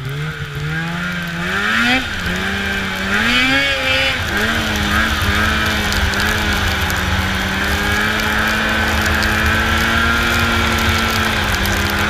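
Snowmobile engine accelerating: its pitch climbs, dips and climbs again over the first few seconds, then holds a steady drone at cruising speed.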